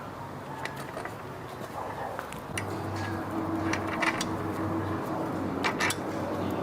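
Mechanical clicking and tapping from bicycle parts and tools being worked on, with a steady low hum that starts about two and a half seconds in.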